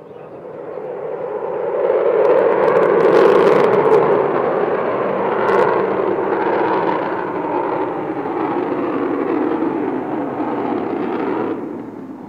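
Avro Vulcan XH558's four Olympus turbojets heard from the ground as the bomber flies its display: loud jet noise that builds over the first two seconds, stays strong, and drops away sharply near the end.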